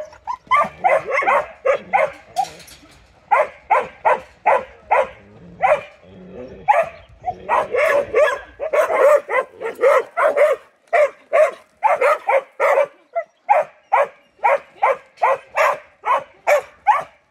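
Sheep dog barking over and over at the sheep it is working, in quick short barks about two to three a second, with brief pauses about two seconds in and again near six seconds.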